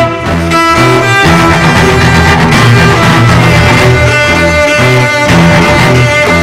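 Bowed string music, violin and cello, playing held notes over short repeated low notes.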